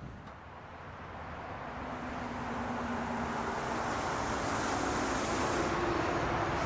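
Vehicle noise swelling gradually as something approaches, a steady rushing sound with a faint low hum in it.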